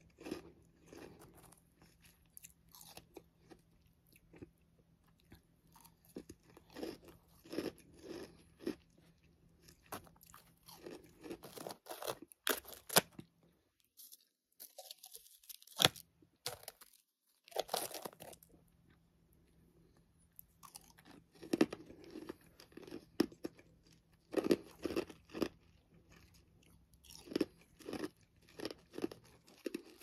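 Frost from a freezer and a humidifier being bitten and chewed: a run of crisp, irregular crunches with a few short pauses.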